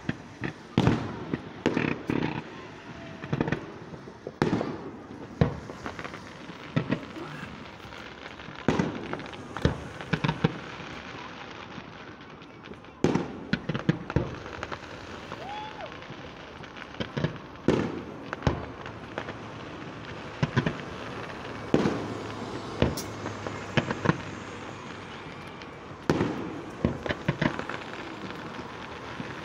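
Aerial fireworks bursting: sharp bangs at irregular intervals, often two or three in quick succession.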